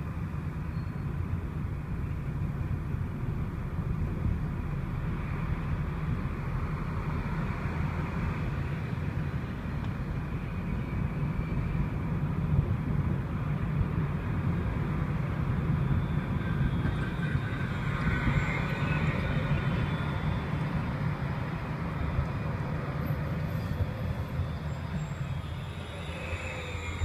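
Steady engine and road rumble of a moving vehicle, heard from inside while driving through city streets.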